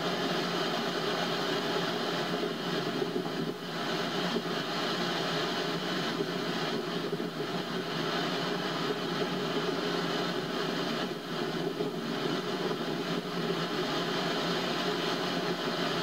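Pacific Ocean surf: a steady wash of breaking waves that eases briefly twice.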